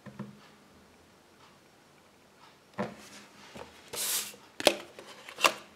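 Trading cards being handled on a tabletop: a card slid and laid down, with a short scraping rustle about four seconds in, followed by two sharp clicks of card stock.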